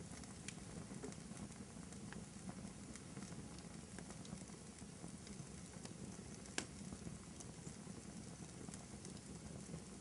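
Wood fire burning in a fireplace: a faint steady hiss and rumble of the flames with a few scattered sharp crackles, the loudest pop about six and a half seconds in.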